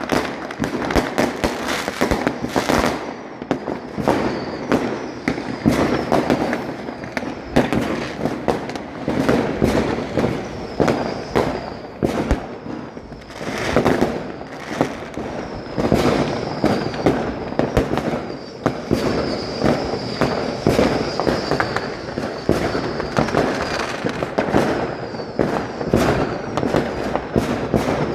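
New Year fireworks going off without a break: dense, irregular bangs and crackles, with a faint high whistle running through much of it.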